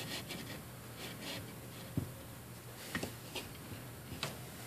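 Faint rustling and rubbing of yarn being pushed and pulled down between the plastic guide pegs of a Loopdeloom weaving loom, with a few light clicks of fingers on the plastic.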